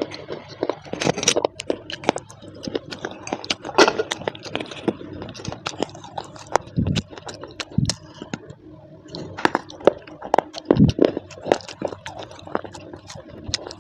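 Close-miked crisp clicks, crackles and scrapes in a dense irregular run, with a few duller thumps, as in ASMR handling of packaging or crunching of clay.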